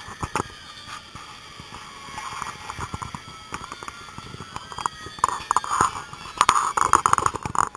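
Emergency vehicle sirens wailing, rising and falling slowly, louder in the last two to three seconds, over many sharp clicks and knocks.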